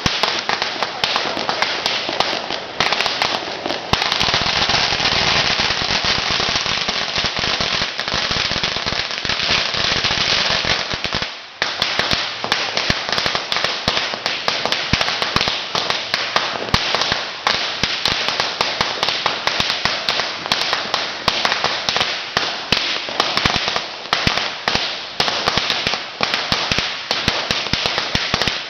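Long strings of Chinese firecrackers going off in a rapid, unbroken barrage of sharp bangs. The bangs run together almost solidly for several seconds, then there is a brief lull about eleven seconds in, followed by a fast run of separate cracks.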